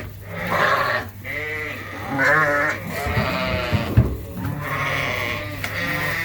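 A flock of ewes and lambs bleating, many calls overlapping one after another, typical of ewes upset at being separated from their lambs. A single sharp knock sounds about four seconds in.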